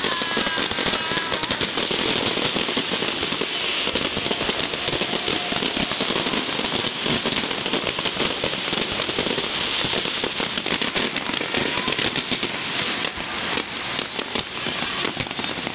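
Fireworks display: a dense, continuous crackling of countless small bursts and pops.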